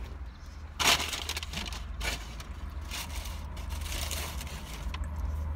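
Close-up chewing of a burger topped with breaded mozzarella sticks, with a loud crunch about a second in followed by irregular crackling and crushing sounds, over a steady low hum.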